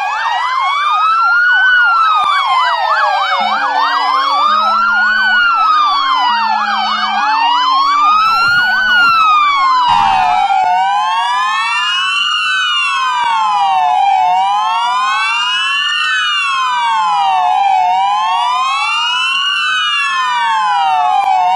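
Sirens of several parked police and other service vehicles wailing together, their rising and falling cycles overlapping, with a faster yelp among them in the first half. A lower two-tone siren alternates between two notes from about three and a half to ten seconds in. Around ten seconds in the sound cuts to another group of wailing sirens.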